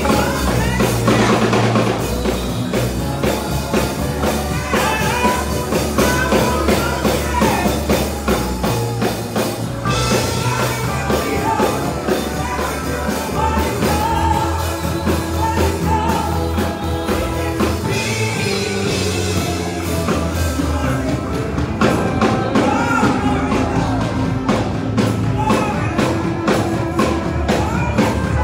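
Robed church choir singing loudly with a microphone lead over live instrumental backing, with a steady drum beat and heavy low notes.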